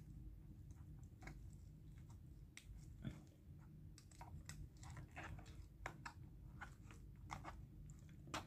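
Faint scraping and clicking of a fork and knife against a takeout food tray as chicken is cut, with soft chewing, over a low steady hum.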